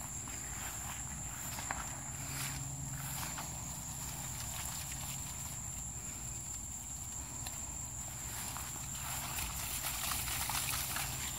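Footsteps swishing through grass, busier and louder around three-quarters of the way through, over a steady high-pitched insect drone.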